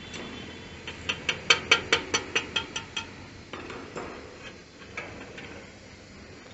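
A steel hand tool striking the sheet-metal catalytic converter box of a Royal Enfield Meteor 350 exhaust. About a second in comes a quick run of a dozen ringing metallic strikes, about six a second, followed by a few slower, softer taps.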